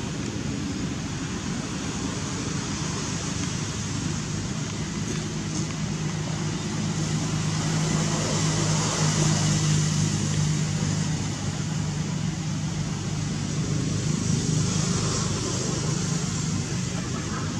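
A motor vehicle's low engine hum over steady outdoor background noise, growing louder around the middle and then easing off.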